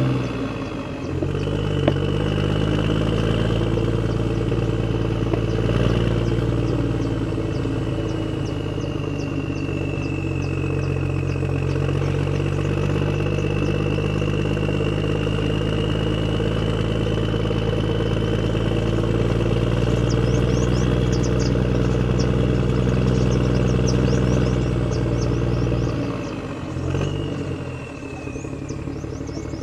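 Radio-controlled construction models running: a steady engine-like drone with a higher motor whine that drifts slowly in pitch, and light rapid ticking in the second half. The drone drops away about 26 seconds in.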